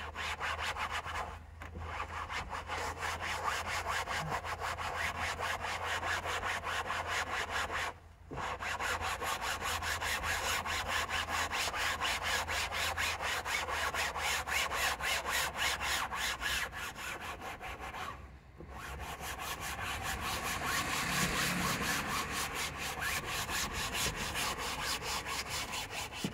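Rapid back-and-forth scrubbing on a car's fabric headliner, a dense, even rhythm of rubbing strokes that stops briefly three times: about a second and a half in, about eight seconds in, and about eighteen seconds in.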